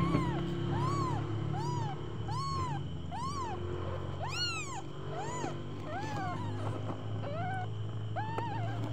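Newborn kitten mewing repeatedly: a quick string of short, high-pitched cries, each rising and falling, about two a second, growing more uneven towards the end.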